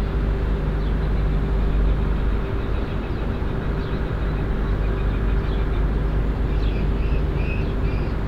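A steady low engine drone with a constant hum. Faint short high chirps come in over it in the second half.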